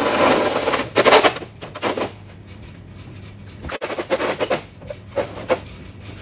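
Power drill with a step drill bit cutting into a carbon fibre bonnet in several short bursts, enlarging the latch holes, the longest burst at the start and a longer one about four seconds in.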